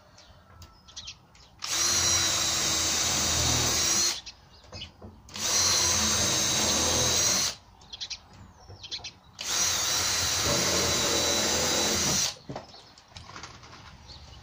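Cordless drill running at steady full speed in three runs of two to three seconds each, drilling pilot holes into the edge of 18 mm plywood for screws, with a steady high whine.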